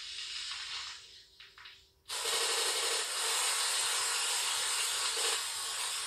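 A faint hiss fades almost to nothing. About two seconds in, a loud, steady static hiss starts suddenly and runs on without change.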